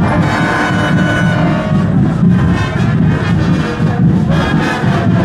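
Marching band playing, brass over a steady beat of drums.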